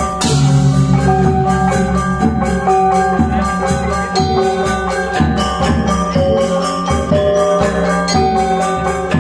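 Balinese gamelan gong ensemble playing: bronze metallophones ring in quick, dense strokes over sustained low gong and drum tones. A bright cymbal-like crash comes right at the start.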